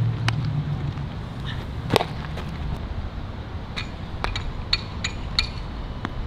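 Scattered sharp pops and cracks of baseballs striking gloves and bats during infield practice. The loudest comes about two seconds in, and a quicker run of pops follows near the end.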